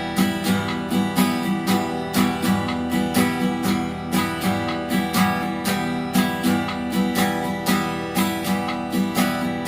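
Acoustic guitar strumming an E minor chord in a steady down-and-up strumming pattern, the strokes evenly spaced.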